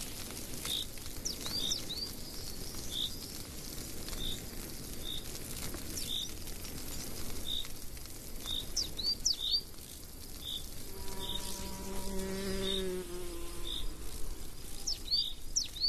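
Woodland ambience of insects buzzing steadily, with short high chirps repeating about once or twice a second. A single flying insect buzzes loudly past about eleven seconds in, its pitch sinking slightly as it goes.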